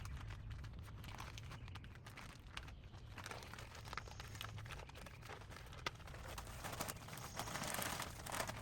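Crinkling and rustling handling noise with scattered light knocks, from ferns being repotted. It grows louder for a second or so near the end.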